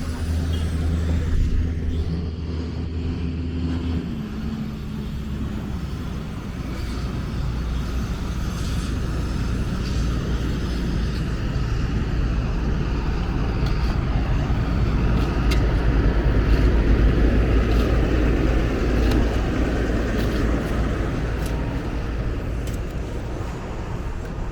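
Street traffic. A nearby engine holds a steady hum for the first four seconds. Then a broad vehicle rumble builds, loudest about two-thirds of the way through, with a few scattered clicks.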